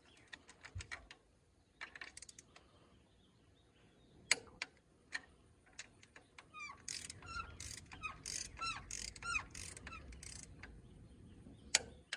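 Hand socket ratchet clicking in short runs and single clicks while nuts are run down onto exhaust manifold studs. A bird chirps repeatedly in the middle stretch.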